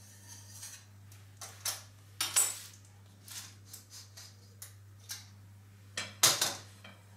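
Metal scraping and clinking of a springform cake pan being unmoulded: a palette knife run around the inside of the ring, then the ring's clasp released and the ring lifted away. Irregular clicks and clanks, the loudest about two seconds in and again about six seconds in.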